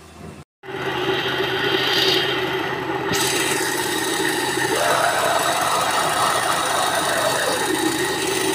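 Electric blender motor running at speed, chopping mango and tomato pieces with spices into a puree. It starts about half a second in and runs steadily, brightening about three seconds in.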